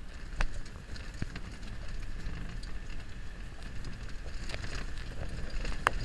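Land Rover driving slowly over a rough stone track: the engine runs low and steady under scattered knocks and rattles, the sharpest about half a second in and near the end.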